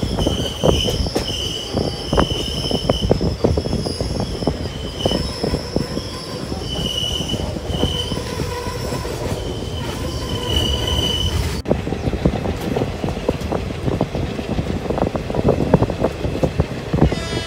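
Passenger train wheels squealing against the rails on a curve: a high-pitched squeal that comes and goes over the steady rumble and clatter of the running coaches. About two-thirds of the way through the squeal stops abruptly, leaving only the rumble and clatter of the wheels on the track.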